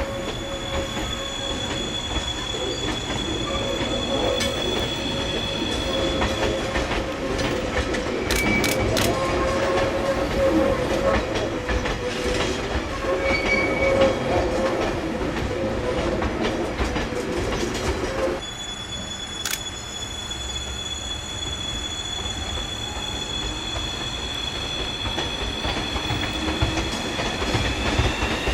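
Electric train moving along the rails, with a steady high whine, wheel squeal and clicks over the track. About two-thirds of the way through the sound drops abruptly and turns quieter, and near the end a whine starts rising in pitch.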